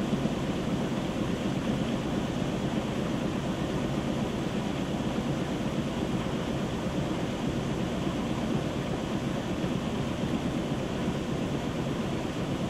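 Whirlpool WTW7300DW top-load washer spinning its basket of wet clothes on a rinse-and-spin cycle: a steady whir with a low hum.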